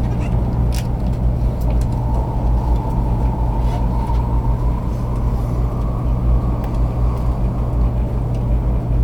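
Cabin running noise of a 500 series Shinkansen: a steady low rumble with a faint high tone that rises slightly in pitch through the middle.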